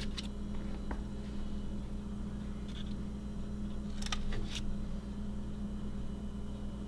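Quiet food-prep handling: a kitchen knife cutting pats from a block of garlic and herb butter in its wrapper on a plastic cutting board, with a few light ticks, two of them close together about four seconds in, over a steady low hum.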